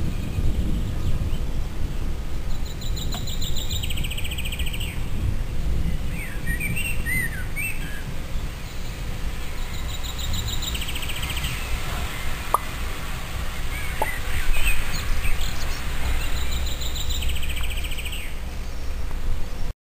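Songbirds singing: one repeats a short, rapid trill every few seconds, with scattered chirps from others in between, over a steady low noise.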